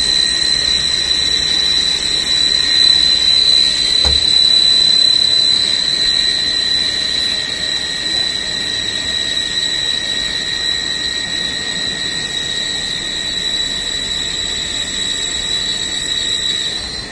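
CNC drilling and milling machine cutting a metal flange under flood coolant. A steady high-pitched whine from the tool working the metal, over the hiss of coolant spray, starts abruptly and stops near the end.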